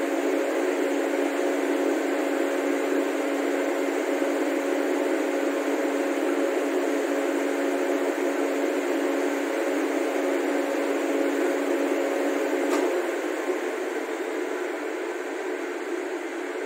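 Idling WAP-7 electric locomotive, a steady machine hum with a low tone. About 13 seconds in a click is heard, the tone stops and the level drops.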